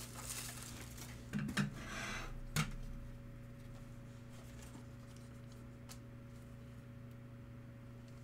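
Trading cards being handled on a table: a few light clicks and a short rustle in the first three seconds, then a steady low electrical hum.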